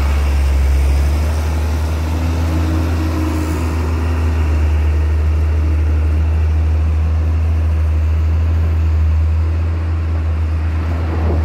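Heavy truck's diesel engine running steadily at low revs: a constant, deep drone with no rise or fall.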